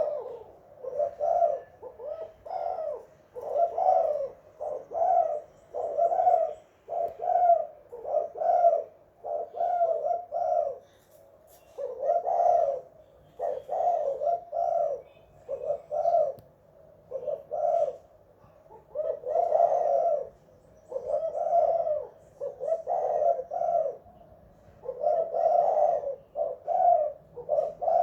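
Spotted dove (tekukur) cooing over and over in short phrases, about one a second, with a couple of brief pauses.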